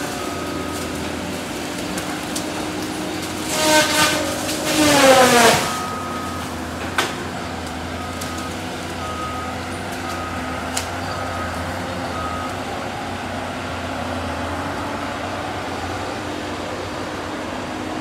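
Cat 573C feller buncher running steadily, with a loud whining surge about four seconds in whose pitch slides down as the disc saw head bites into a tree. Later its backup alarm beeps about twice a second for a few seconds.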